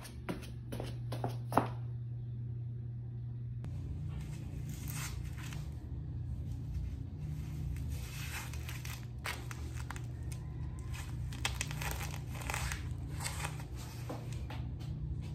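Fabric rustling and rasping as a waist trainer is wrapped around the body and pulled and fastened by hand: a run of irregular scratchy, tearing sounds over a steady low room hum, with a couple of light knocks in the first two seconds.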